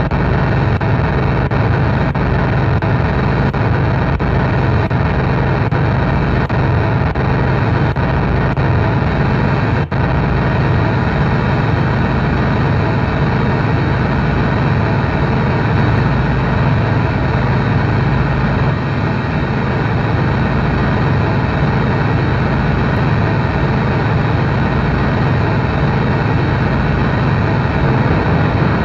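Harsh noise from a chain of effects pedals: a loud, dense wall of distorted noise with a heavy low drone underneath. It holds steady, with only a brief dip about ten seconds in.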